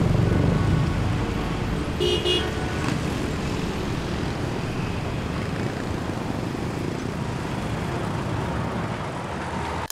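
Steady city road traffic noise, many vehicles passing, with a short horn toot about two seconds in.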